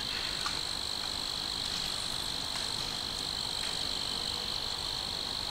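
Crickets chirping in a steady night chorus, a continuous high-pitched trill that does not let up.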